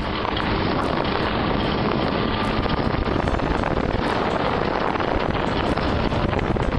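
Car driving on a dirt road, heard from inside the cabin: a steady rumble and hiss of engine and tyres.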